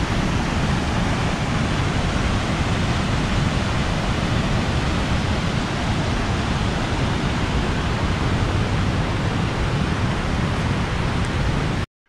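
Papagaio River's rushing water, a steady, even noise that cuts off suddenly just before the end.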